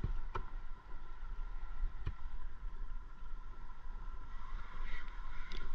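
Steady low wind rumble on an action-camera mic over open water, with a few sharp clicks from handling a spinning rod and reel. From about four and a half seconds in, a brighter whirring comes in as the spinning reel is cranked.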